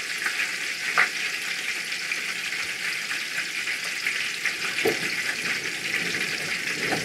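Rice paper wraps with mushroom filling deep-frying in hot oil: a steady sizzle and crackle, with two light knocks, about a second in and near five seconds.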